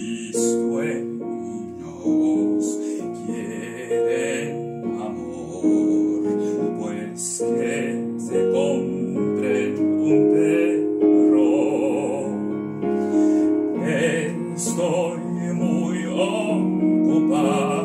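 Operatic singing with vibrato over a piano accompaniment, a comic opera song.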